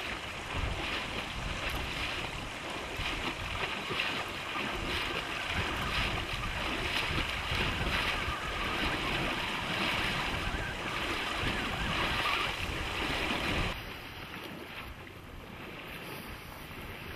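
Steady outdoor wind and water noise, an even hiss with no distinct events, dropping suddenly to a quieter hiss about fourteen seconds in.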